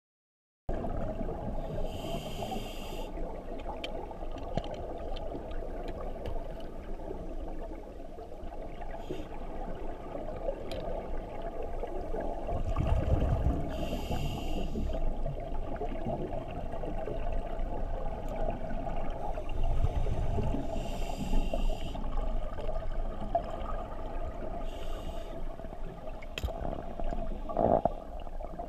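Scuba diver breathing through a regulator underwater: a hiss on each inhale and a low burble of exhaust bubbles on each exhale, a few breaths several seconds apart, over a steady hum. The sound starts just under a second in.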